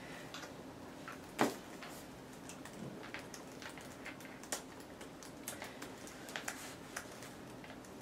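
Quiet small-room tone with a faint steady hum and scattered small clicks and taps, the sharpest about one and a half seconds in.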